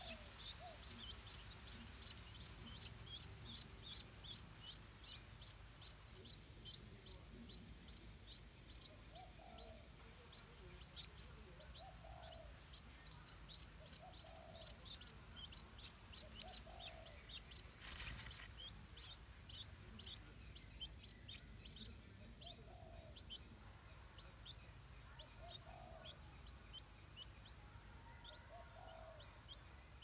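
Stripe-throated bulbul nestlings begging: rapid thin high-pitched chirps, a few a second, thickest midway through, over a steady high whine that fades toward the end. A soft low call repeats every second or two in the background, and there is a single sharp click a little past the middle.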